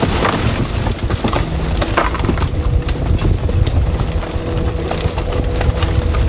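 Freshly landed fish tipped from a brailer net and flapping and thrashing in a pile: a dense patter of wet slaps and knocks, with a louder rush of fish pouring out at the start and a steady low hum underneath.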